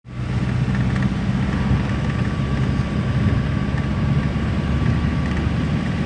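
Steady engine and road noise heard inside a moving road vehicle on a highway: a low, even hum with a faint steady whine above it.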